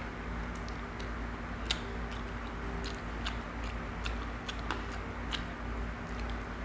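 A person chewing close to the microphone, with scattered soft mouth clicks and smacks, one a little sharper than the rest about two seconds in, over a steady low hum.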